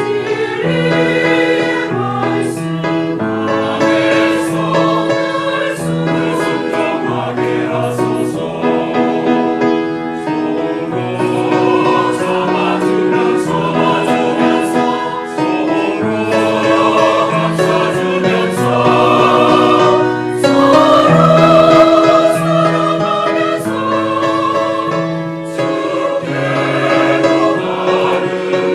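Church choir singing a hymn, with held sung notes over a moving bass line.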